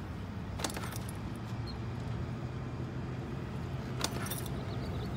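Steady low hum of vehicle traffic, with two brief light clicks, one about a second in and one near the end.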